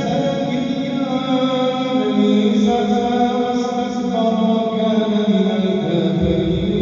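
A man's voice reciting the Quran in a slow melodic chant, holding long notes that step to a new pitch every couple of seconds.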